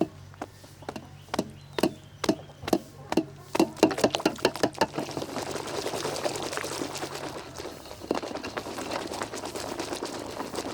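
Water splashing in sharp strokes, about two or three a second, giving way about four seconds in to a steady pour of water.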